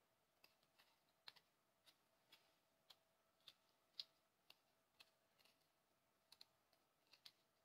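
Faint, irregular clicks of a knife blade cutting into a lemon, roughly two a second.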